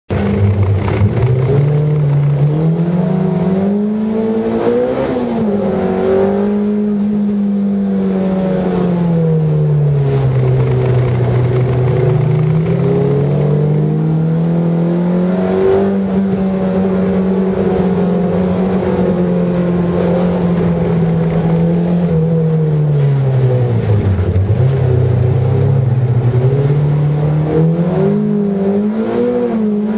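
Car engine heard from inside the cabin, revving up and down through the gears: its pitch climbs under acceleration, holds, then drops away as the driver lifts off, several times over.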